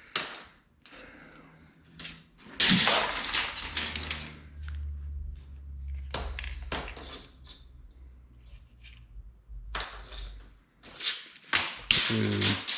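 Scattered clicks and knocks of objects being handled, with a low hum in the middle stretch.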